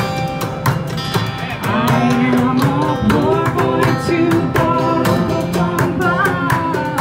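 Live busking performance: singing through a small PA with a steady beat on hand drums and plastic buckets, and a guitar underneath.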